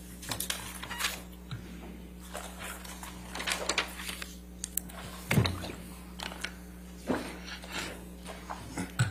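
Scattered clicks, crinkles and a soft thump about five seconds in from a plastic water bottle being handled and drunk from close to a microphone, over a steady low electrical hum.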